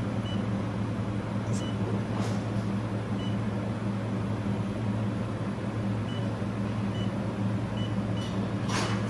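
Steady low hum of a running handheld laser welding machine, with a few faint short high beeps scattered through it.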